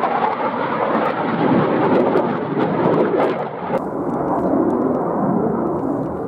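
A fighter jet's engine rumbling loudly as it flies past. About four seconds in the sound drops abruptly to a duller, more distant rumble that slowly fades.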